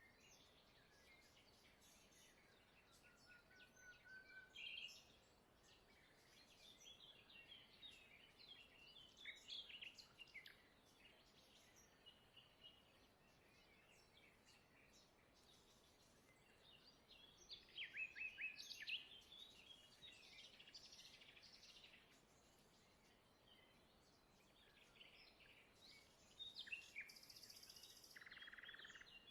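Faint birdsong: scattered chirps and short trills from small birds over a quiet background, busiest about two-thirds of the way through.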